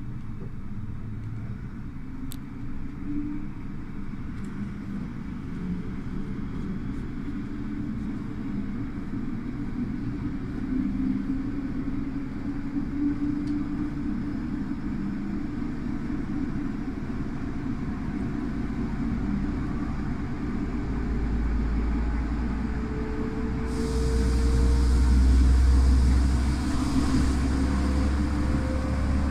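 An S-Bahn train of a DB class 143 electric locomotive and x-coaches running along the track, a steady rumble that grows gradually louder. A hiss joins in for a few seconds near the end, along with a faint whine rising in pitch.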